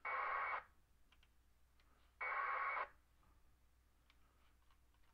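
Two short bursts of 1200-baud AFSK packet radio data from a VHF radio's speaker, each a harsh warbling screech about half a second long, one at the start and one about two seconds in: packets being received over the ISS digipeater. A few faint clicks follow.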